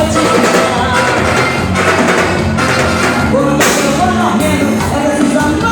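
Loud live band music with a woman singing.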